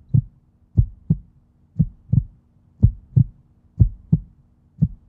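Heartbeat sound effect: low paired thumps, lub-dub, about one beat a second, over a faint steady low tone.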